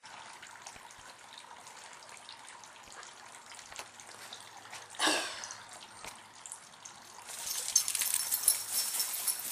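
A dog running up with its collar tags jingling: a dense run of sharp metallic jingles and clicks that starts suddenly about seven seconds in. Before that, about five seconds in, comes one short sound that falls steeply in pitch.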